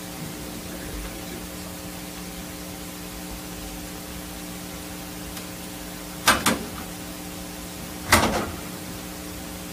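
Steady room hum of several low tones, broken by two sharp clunks about six seconds in and again two seconds later.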